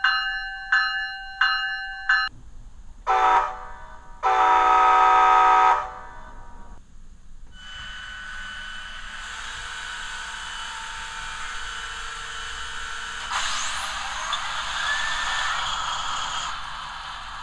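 Sound decoder of a Bachmann N scale Siemens SC-44 Charger model locomotive (TCS WOWSOUND), playing through its small onboard speaker. The locomotive bell rings about one and a half strikes a second and stops about two seconds in. The horn then gives a short blast and a longer one, and about seven seconds in the diesel prime mover startup sequence begins, with a rising whine joining near the end.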